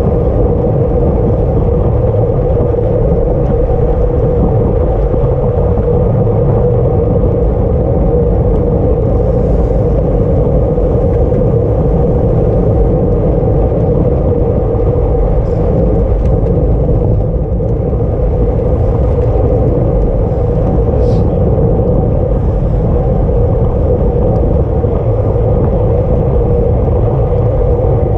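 Steady loud rumble of wind buffeting the microphone of a camera riding on a racing bicycle at speed, with a constant hum underneath.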